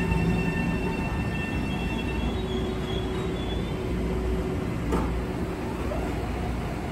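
Passenger train running on the rails: a steady low rumble with high, thin squealing tones that fade out about two seconds in, and a sharp click about five seconds in.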